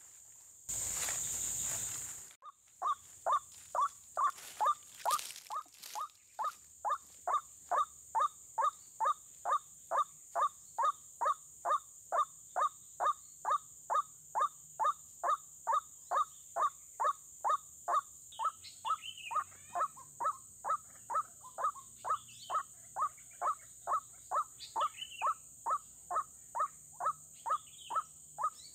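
White-breasted waterhen lure call played from a speaker: the same call note repeated very regularly, about two to three times a second. A brief burst of rustling comes just before the calling starts. From about two-thirds of the way in, higher, falling bird calls join it.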